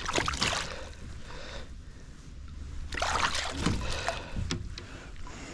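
Water splashing beside a kayak as a hooked largemouth bass is landed, in two bursts: one at the start and one about three seconds in.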